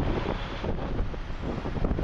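Wind buffeting the microphone in uneven gusts, a low rumbling noise.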